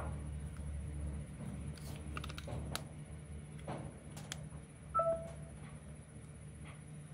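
Scattered light clicks and taps, with one short electronic beep about five seconds in, over a steady low hum.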